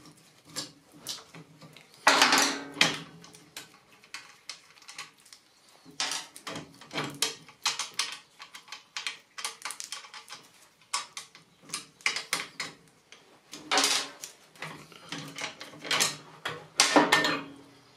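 Metal clicks, clinks and clatters of hand tools and parts, as the exhaust is unbolted from a Puch X30 moped. The sounds come in a scattered run, with louder clatters about two seconds in and twice near the end.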